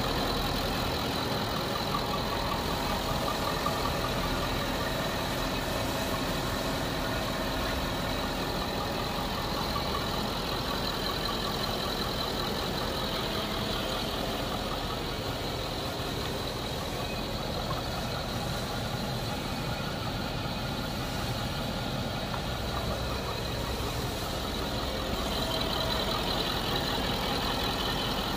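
Audi Q7's 4.2-litre V8 TDI diesel engine idling steadily with its new oil cooler fitted.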